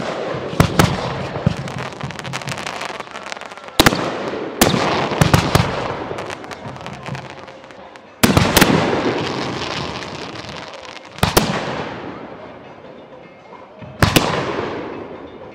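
Aerial fireworks shells bursting overhead, one or two sharp bangs about every three to four seconds. Each burst is followed by a dense crackling tail that fades over several seconds.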